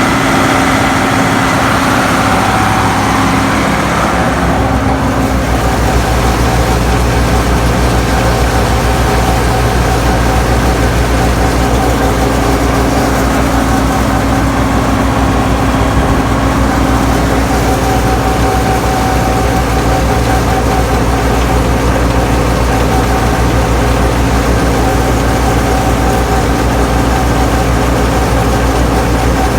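Tractor diesel engine running steadily under load, driving a silage blower as a wagon unloads into it. Its note shifts slightly about four seconds in.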